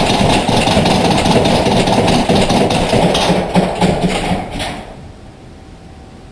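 Loud rumbling drone from a dark horror soundtrack, dense and noisy with a pulsing low throb, fading out about five seconds in to a faint hiss.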